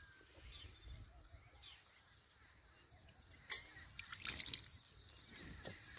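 Faint hand-milking of a cow: a few irregular squirts of milk and light knocks against a steel pot, loudest about four seconds in.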